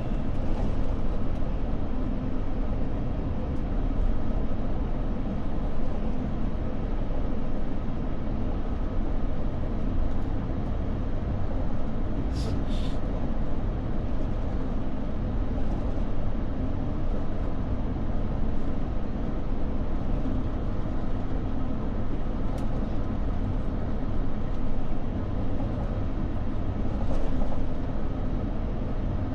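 Airliner cabin noise before takeoff: a steady low rumble and hum of the jet engines and air system. A couple of brief clicks about twelve seconds in.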